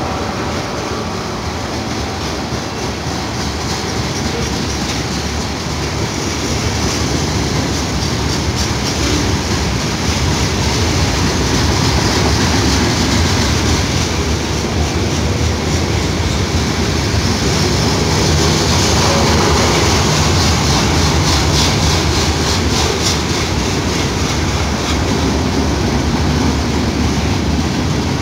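Freight cars of a long mixed freight train rolling past at steady speed: a continuous rumble of steel wheels on the rails with clacking over the rail joints, growing a little louder partway through.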